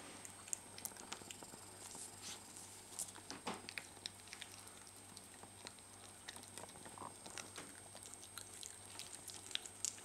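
Faint, irregular small clicks and scratches from a young cocker spaniel puppy at play.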